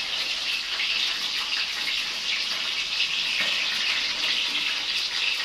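Food frying in hot oil in a pan: a steady sizzle with a few faint pops.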